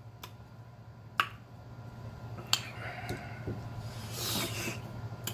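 Clear plastic being handled: three sharp clicks spread over the first few seconds, then a brief crinkling rustle near the end.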